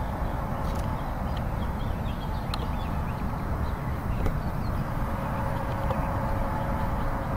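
Lakeside outdoor ambience: a steady low rumble, with faint high bird chirps now and then.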